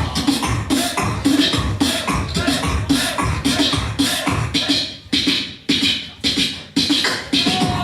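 Beatboxing: one performer's vocal drum beat of kick and snare sounds, thinning to a few spaced hits about five seconds in before the full beat returns.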